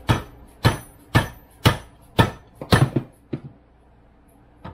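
An orange soft-faced hammer striking a driveshaft yoke held in a steel bench vise, tapping a new universal joint into place. There are about eight blows at roughly two a second, with a quick double strike and a lighter last tap before they stop.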